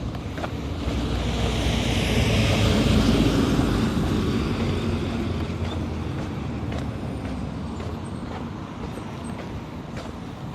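A road vehicle passing close by: its engine and tyre noise swells to its loudest about three seconds in, then slowly fades away.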